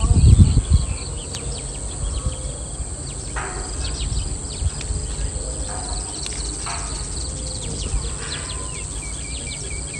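Outdoor ambience: birds chirping over a low rumble of wind noise on the microphone, which is loudest in the first second.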